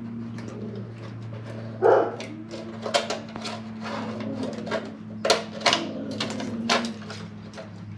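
Light clicks and rustles of wiring and plastic being handled on a motorcycle, over a steady low hum, with one louder short sound about two seconds in.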